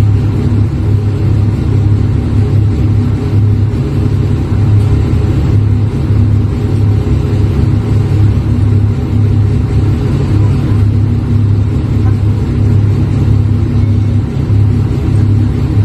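Large Daewoo forklift's engine idling, a steady low drone with a slight regular pulse.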